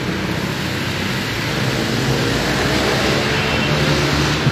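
Road traffic noise: a steady rush with a low vehicle engine hum underneath.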